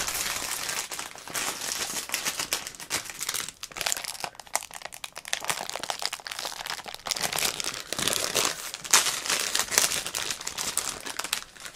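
Toy packaging crinkling and rustling as it is handled and unwrapped, in a run of irregular crackles.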